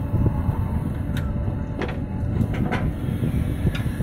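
JCB 3DX backhoe loader's diesel engine running under load while the backhoe arm swings and lowers the bucket, with a few short knocks and clanks from the arm and bucket.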